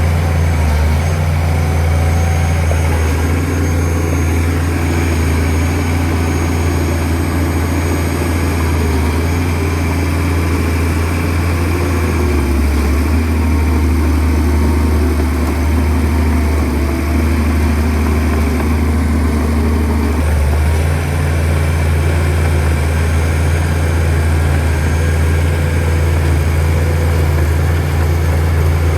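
Shantui DH17C2 bulldozer's diesel engine running steadily with a deep low drone. Its note changes about twelve seconds in and changes back about eight seconds later, as the load on the machine shifts.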